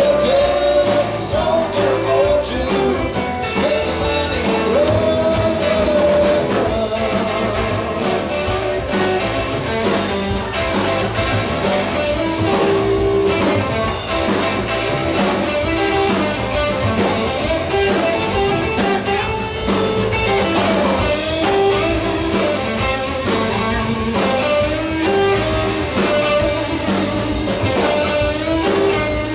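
Live rock band playing: electric guitar, electric bass and drum kit, loud and steady throughout.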